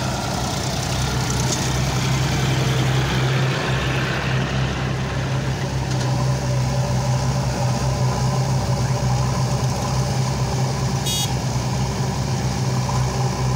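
Diesel engines of a John Deere tractor and JCB 3DX backhoe loaders running steadily, a constant low hum.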